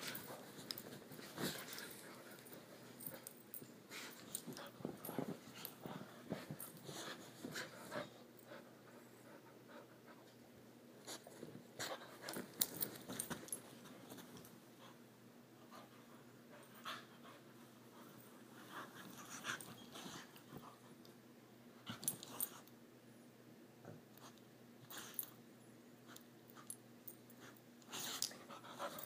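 A puppy playing in bed covers: rustling and scuffing of the blankets with the puppy's own breathing and small dog noises, in irregular bursts.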